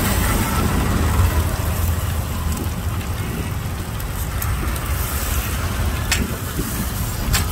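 Steady low rumble of street traffic, with two light clicks near the end.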